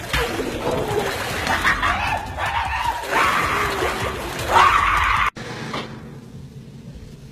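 Men shouting and scuffling at a kitchen sink, with muffled, warbling cries from the man whose head is held down in the sink. It cuts off suddenly about five seconds in, leaving a much quieter stretch.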